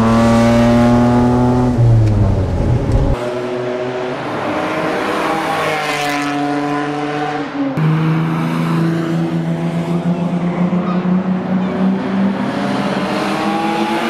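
Lamborghini LM002's V12 engine running hard, heard from inside the cabin at first with a deep rumble. The engine note changes abruptly about three seconds in and again near eight seconds, then climbs slowly as the vehicle accelerates.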